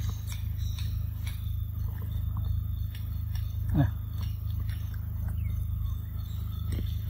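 Macaque biting into and chewing a ripe mango: scattered wet clicks of bites and chewing over a steady low hum. About four seconds in there is one short cry that falls steeply in pitch.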